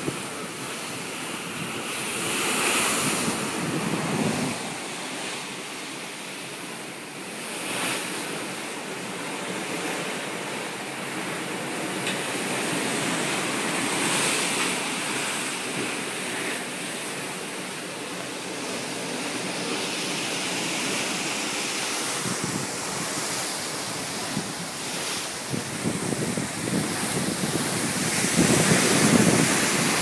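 Sea water rushing and churning alongside a large ship's hull, with wind buffeting the microphone, gusting harder near the end.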